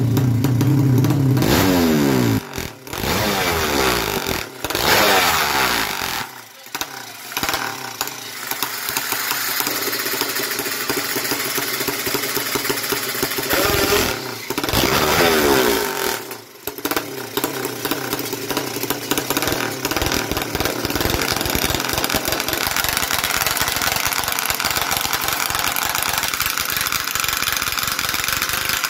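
Four-stroke underbone drag-race motorcycle engine at the start line, blipped hard several times: the revs rise and fall about two seconds in, again around five seconds and around fifteen seconds, and it runs at a rough idle in between.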